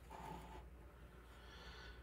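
Near silence: room tone.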